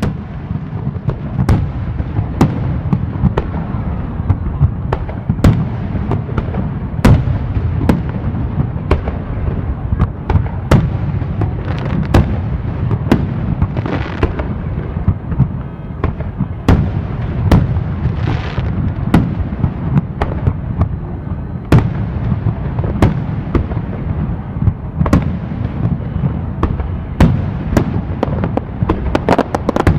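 Fireworks display going off continuously: a steady low rumble of booms with frequent sharp bangs, several a second at times, and a couple of longer hissing crackles about halfway through.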